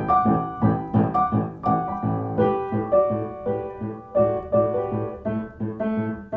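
Piano played as a solo instrumental passage: chords struck in a steady rhythm with a melody line moving over them.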